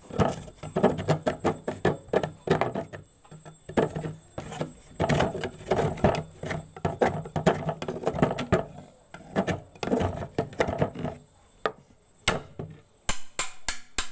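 A metal blade scraping the outer skin off a bamboo section in rapid, irregular strokes. The scraping stops about eleven seconds in, followed by a few sharp clicks near the end.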